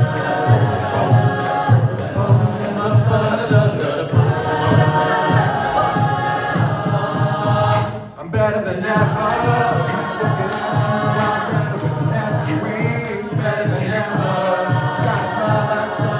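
Choir singing in layered harmony over a steady low beat. It drops out briefly about halfway through, then comes back in.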